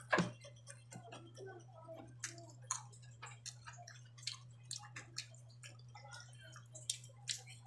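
Close-miked eating sounds: irregular wet mouth clicks, lip smacks and chewing of a meal of dried fish and vegetables, with a sharp click loudest just after the start. A steady low hum runs underneath.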